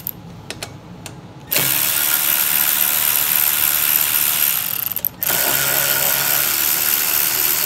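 Cordless electric ratchet running to back out 5/16 bolts, in two runs of a few seconds each with a brief break about five seconds in. A few light clicks come before the first run starts about a second and a half in.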